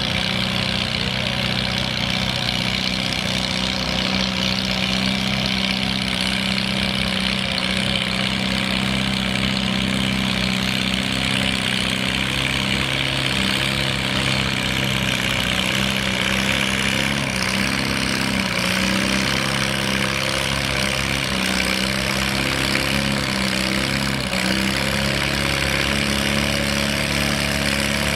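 Farmall H tractor's four-cylinder gasoline engine running under heavy load as it drags a pulling sled. It is a steady drone with slight dips and wavers in pitch through the middle.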